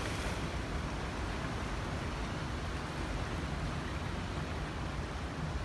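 Steady outdoor seaside ambience: an even hiss with a low rumble, from wind and the sea against the rocks.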